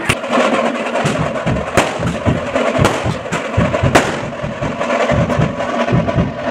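Aerial fireworks bursting overhead: about four sharp bangs with crackling in between, over fast, steady drumming.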